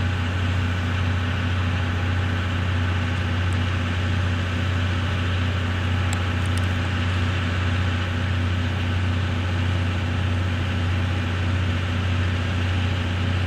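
Steady, unchanging low mechanical hum with an even hiss above it, without any rhythmic beats.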